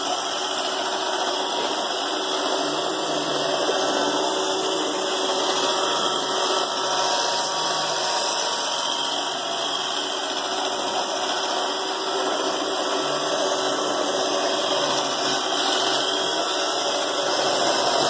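iRobot Roomba robot vacuum cleaning on carpet: a steady whirring hum of its vacuum motor and brushes as it drives along.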